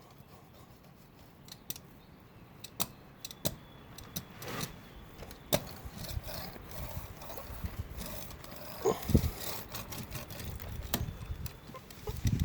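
Hand work on wet fiberglass laminate: scattered sharp clicks and rustling, with a few dull thumps about nine seconds in and near the end.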